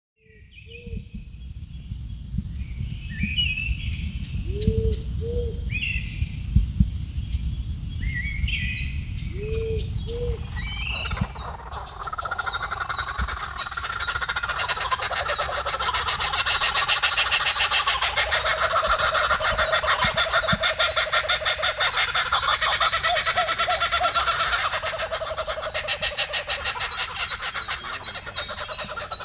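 Scattered bird chirps and a few short rising calls over a low rumble. About a third of the way in, a dense, rapidly pulsing frog chorus takes over and grows louder.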